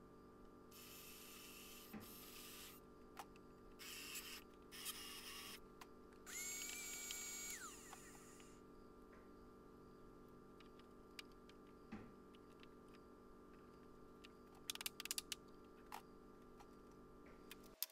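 Cordless drill running in a few short bursts, then one longer run in which the motor's whine rises, holds steady for about a second and a half, and winds down. Several light clicks and clatters of tools being handled on a bench come near the end, over a faint steady hum.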